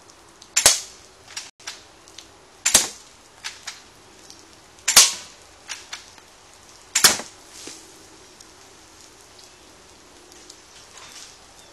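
Beretta Storm airsoft gun firing four single shots about two seconds apart, each a sharp snap followed by a few lighter clicks. After the fourth shot only faint ticks remain.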